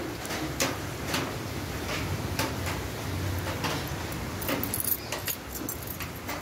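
A bunch of keys jingling as they are carried, with irregular light clicks and knocks that come thickest about four to five seconds in.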